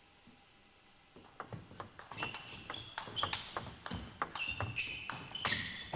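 Table tennis rally: the ball clicking sharply off the bats and the table in quick succession, with short high pings, starting about a second in after a quiet moment and growing louder.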